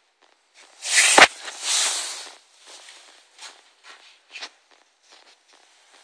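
A cat's claws scrabbling and scratching at stair carpet, with a sharp knock about a second in and a louder scratchy rustle just after, then scattered light scratches.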